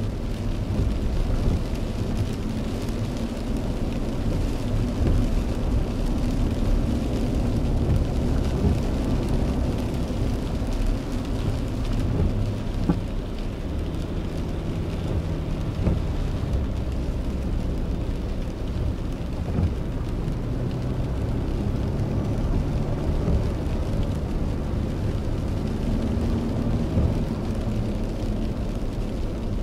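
Steady low rumble of a car's engine and tyres on a wet road, heard from inside the moving car, with rain on the roof and windshield and a few faint drop ticks.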